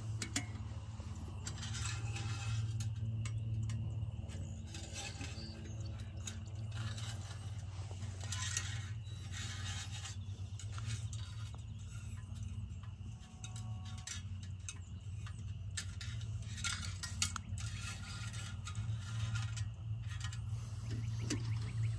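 Irregular clinks, knocks and scrapes of objects being handled, over a steady low hum.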